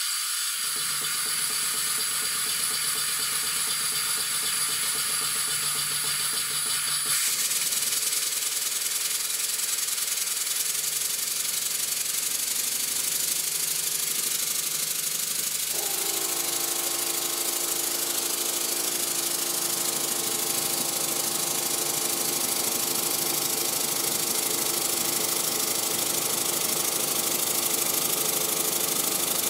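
Stuart No.1 single-cylinder model steam engine running on compressed air: a steady hiss of exhausting air with the rattle of its moving parts. The sound changes character about halfway through.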